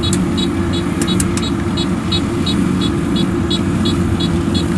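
Diesel engine of a rice combine harvester running steadily, with a regular run of high ticks about four a second over the engine sound.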